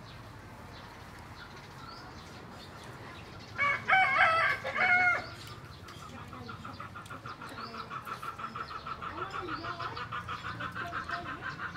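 A rooster crows once, starting about three and a half seconds in. After the crow, a rapid pulsing trill of several pulses a second starts up and grows steadily louder.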